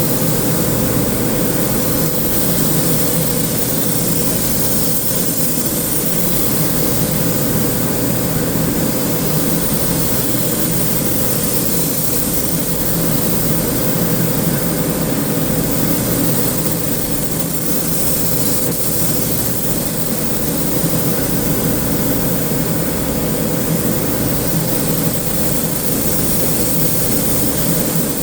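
Steady machine drone with a constant airy hiss and a low hum, unchanging throughout.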